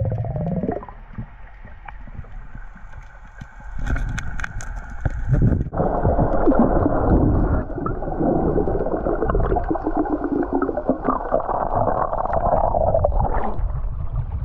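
Muffled underwater sound picked up by a camera in a waterproof housing: a few sharp clicks, then dense gurgling and bubbling water. Near the end the camera breaks the surface and splashes.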